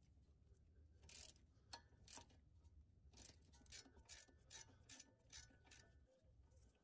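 Faint clicking of a ratcheting wrench's pawl, swung back and forth in short strokes to loosen the nut on a sway bar end link, about two clicks a second, stopping near the end.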